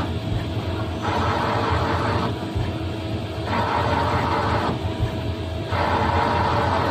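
CNC lathe grooving a metal shaft supported by a tailstock live centre. The cutting hiss comes three times, in spells about a second long a little over two seconds apart, over the steady hum of the running spindle.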